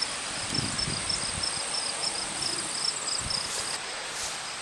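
Insects, crickets or similar, calling in a summer garden: a high pulsing chirp a few times a second that stops about halfway through, over a steady thin high trill. Soft rustling of plants.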